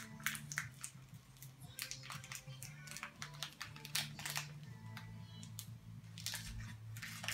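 Crinkling and crackling of a small plastic toy blind-bag wrapper being handled and torn open by hand, in many short irregular crackles, over low background music.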